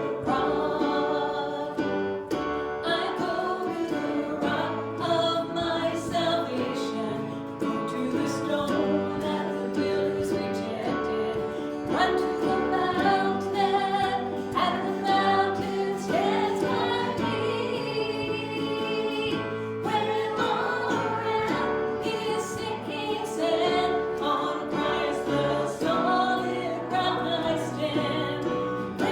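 Worship music: several voices singing a slow song together over sustained instrumental accompaniment, with held notes.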